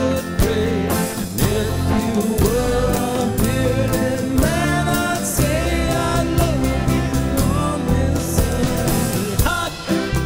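A song with a singing voice over a full band accompaniment with a steady beat.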